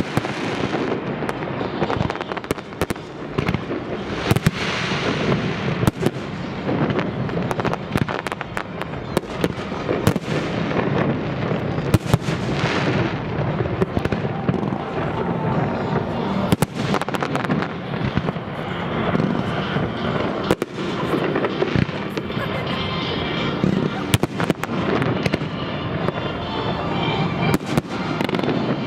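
Fireworks display: aerial shells bursting in a rapid, irregular string of sharp bangs.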